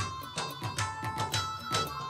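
Instrumental background music with a steady percussive beat and held melody notes.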